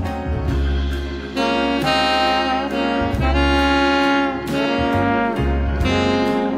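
Background instrumental music, a slow jazz-like tune with long held melody notes over a bass line that changes about once a second.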